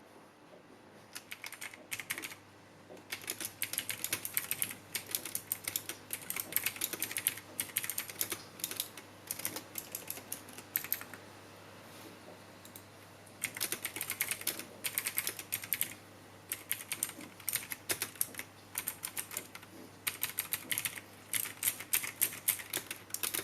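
Typing on a Smartbuy RUSH Carbon 312 mechanical keyboard with Jixian Blue clicky switches: fast runs of sharp key clicks in bursts, with a few short pauses between runs.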